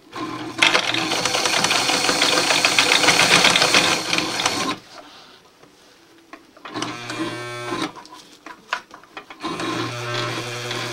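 Electric sewing machine stitching through camouflage fabric in three runs: a fast run of about four seconds, a short slower run with separate stitch strokes about seven seconds in, and another run near the end, each with the motor humming under the needle's clatter.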